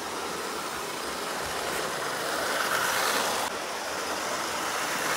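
Hornby LMS Patriot Class model locomotive, an almost 50-year-old model with its original motor, running along the track with its coaches, a noisy steady whirring rattle. It grows louder around three seconds in and then drops back a little.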